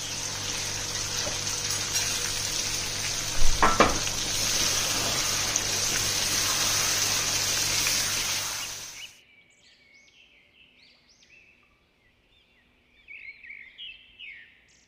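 Prepared masala paste sizzling as it hits hot oil in a stainless steel karahi, being scraped in and spread with a spatula, with one sharp knock about four seconds in. The sizzle cuts off suddenly after about nine seconds, and faint bird chirps follow near the end.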